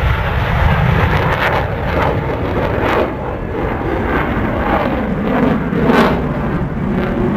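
Loud, steady jet noise of a US Air Force F-16 Fighting Falcon flying its air show demonstration, a deep rumbling rush.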